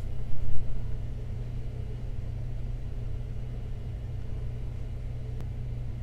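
Steady low hum of background room tone or electrical hum, with a few soft knocks in the first second.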